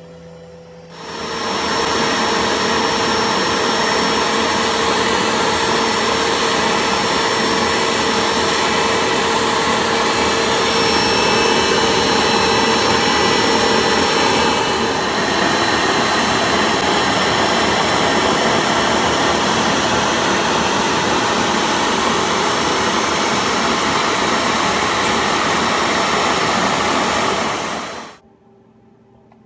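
A CNC router running: a loud, steady machine noise with a high whine, starting about a second in, shifting slightly in tone about halfway through, then cutting off abruptly near the end.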